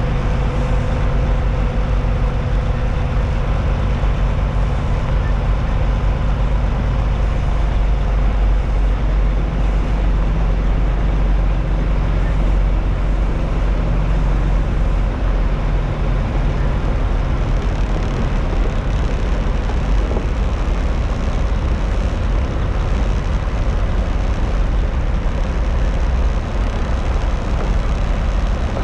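Semi truck's diesel engine running steadily at low speed as the tractor-trailer creeps across a dirt lot.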